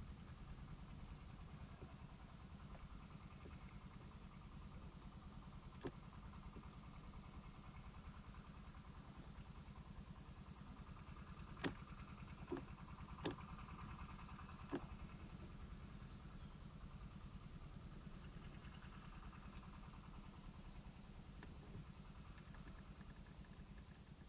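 A low, steady, engine-like rumble, like an idling motor, with a handful of short sharp clicks, most of them about halfway through.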